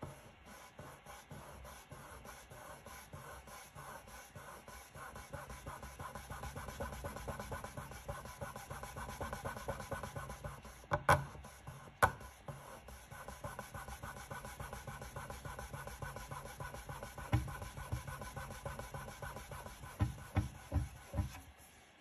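Microfiber cloth rubbed briskly back and forth over a walnut board, working in hard wax oil: a steady, rapid rhythmic rubbing that grows louder toward the middle. A few sharp knocks stand out, the two loudest near the middle and a quick cluster near the end.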